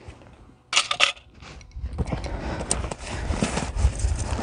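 A folding bucksaw set down on bare rock with a short clatter about a second in, then steady rustling as hands rummage inside a roll-top waterproof canoe pack (Eureka SS 115) among the stuff sacks.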